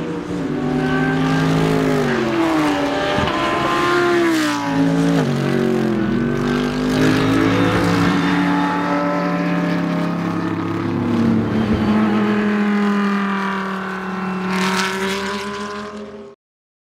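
Mercedes-AMG GT3 race car's V8 engine running at speed on track, its note sliding down and climbing in pitch several times. The sound cuts off abruptly near the end.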